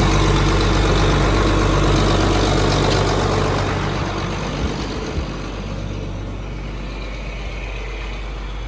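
Farm tractor engine running steadily, then getting quieter about four seconds in and settling to a lower idle, with two light knocks around five seconds.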